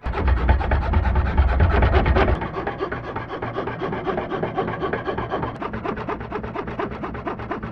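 Antique Barnes No. 2 foot-powered scroll saw running, its blade cutting through a wooden board with fast, even rasping strokes. It is louder for the first two and a half seconds or so, then settles to a softer, steady cut.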